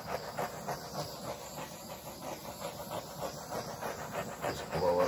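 Paint being spread over a canvas by hand, a run of short swishing strokes at about three to four a second. A brief voiced sound comes near the end.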